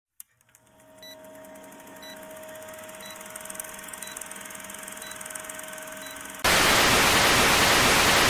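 Old-film countdown intro sound effect: a steady low hiss and hum with a short high beep once a second, six times. About six and a half seconds in, loud TV static hiss.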